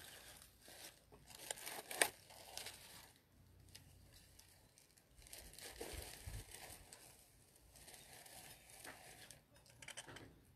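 Tissue paper and wrapping rustling and crinkling as items are handled and unpacked from a gift box, with a few sharper crackles, one about two seconds in.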